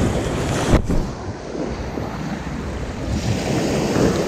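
Sea waves breaking and washing over a stony shore, with wind buffeting the microphone; the surf swells up again near the end. A single sharp knock sounds about a second in.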